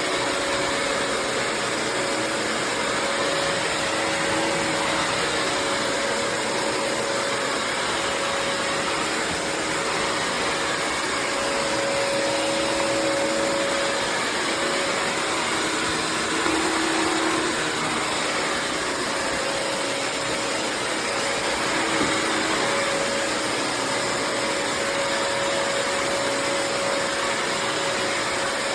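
Bissell CrossWave HydroSteam Pet wet-dry vacuum running steadily while it vacuums and mops a floor, its motor noise carrying a constant whine.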